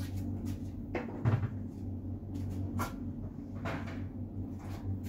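Scattered light knocks and clacks of wooden boards being handled, five or so spread over a few seconds, over a steady low hum.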